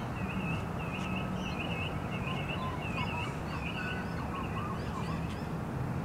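A chorus of noisy miners calling back and forth: a quick run of short, repeated whistled chirps from several birds, with a few lower notes midway, over a steady low background rumble.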